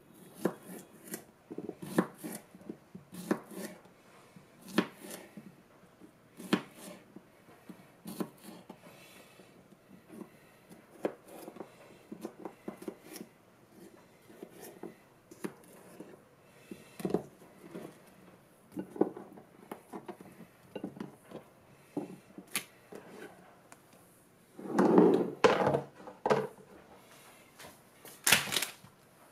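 Kitchen knife cutting small cucumbers on a plastic cutting board, each cut ending in a sharp knock on the board, every second or two. A louder, quick cluster of knocks and clatter comes near the end.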